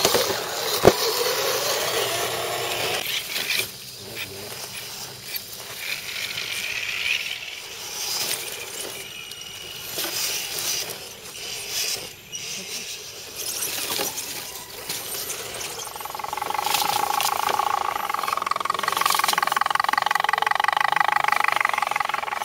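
Electric motor and gearbox whine of RC scale crawler trucks working over roots and dirt, rising and falling in pitch with the throttle. A single sharp click comes about a second in. The whine grows louder and steadier near the end as a truck comes close.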